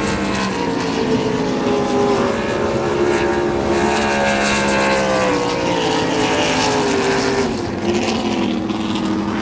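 Several supercharged 6-litre race boat engines running flat out as the boats pass at speed, their overlapping notes dropping in pitch as each boat goes by.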